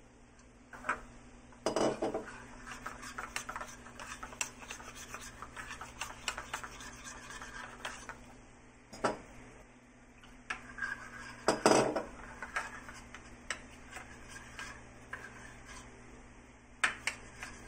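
A metal spoon stirring and scraping round a small bowl, mixing flour and water into a slurry for thickening a sauce. There is a steady run of small scrapes and ticks, with several sharper knocks of the spoon against the bowl. The loudest knocks come about two seconds in and again about twelve seconds in.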